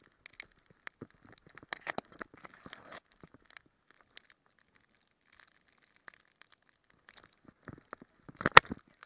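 Crunching and rustling of a dog's paws and body moving through snow and dry long grass, picked up close by a camera on its harness. Scattered crunches thin out to near quiet in the middle, then a louder cluster of sharp crunches comes near the end.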